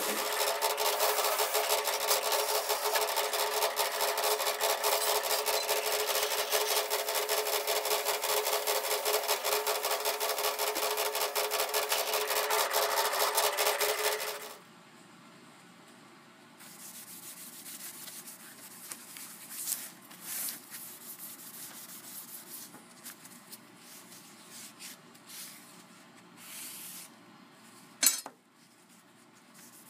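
Drill press spinning a fiber sanding disc against a rusty steel carpenter's square, grinding off the rust: a loud steady grinding with a steady tone under it, which cuts off suddenly about halfway through. After it, quieter intermittent rubbing of a cloth on the steel square, with one sharp knock near the end.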